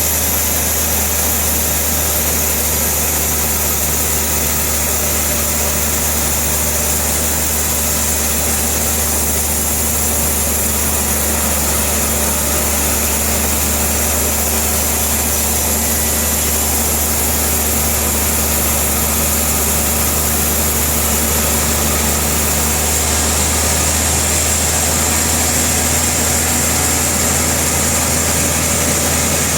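Sawmill machinery running steadily, a constant low engine-like hum that shifts slightly in tone about 23 seconds in.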